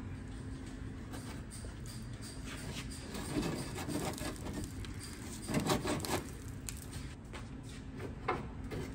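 Scattered clicks and light knocks of parts being handled on the front end of a BMW E30 over a steady workshop hum, busiest about three and a half seconds in and again around six seconds in.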